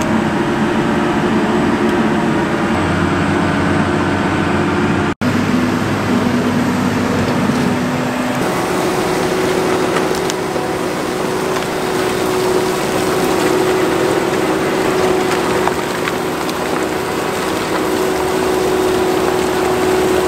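Case IH Quad Trac 620 tractor engine running steadily under heavy load while pulling a tile plow through wet ground. About five seconds in, the sound cuts out for a moment, and after that it is one steady engine drone.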